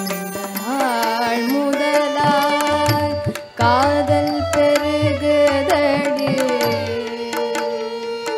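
Carnatic music for a padam in raga Madhuvanti, Adi tala: a voice gliding over melodic accompaniment with low drum strokes, dipping briefly about three and a half seconds in.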